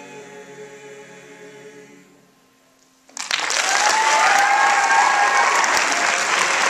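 A mixed choir's last held chord fades out over the first two seconds. After a brief lull, loud audience applause breaks out about three seconds in and keeps going.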